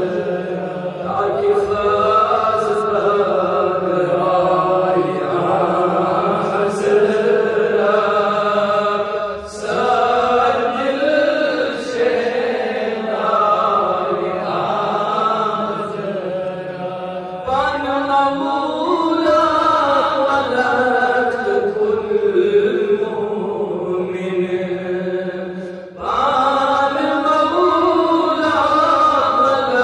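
A man's voice chanting a devotional recitation, in the style of a naat, into a microphone: long, drawn-out melodic phrases that slide up and down in pitch, broken by short pauses for breath.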